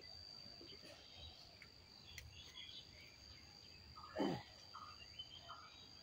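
Faint field ambience: a steady high insect trill, with short chirps repeating every second or so and one brief, louder sound sliding downward in pitch about four seconds in.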